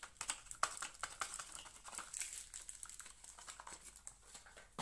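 Crinkling and irregular light clicking of card booster-pack wrappers and their cardboard box being handled as the packs are slid out.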